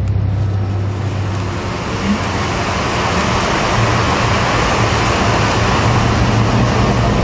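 Rain sound effect over the arena's sound system: a steady hiss that builds over the first three seconds and then holds, over a low held note in the song's intro.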